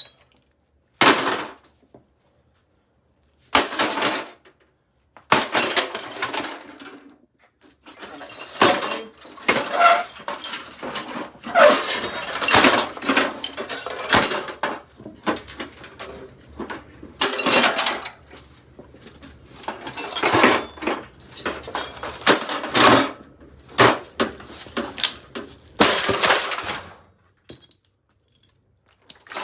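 Hamilton Beach microwave oven being smashed: a few separate heavy blows, then a long run of repeated crashing impacts with breaking and clattering debris.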